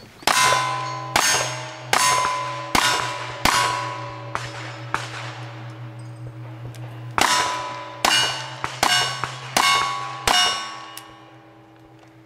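Rapid gunfire at steel targets: about ten shots, roughly one every 0.8 seconds, in two strings with a pause of about two seconds between them. Each shot is followed by the ringing clang of a struck steel plate.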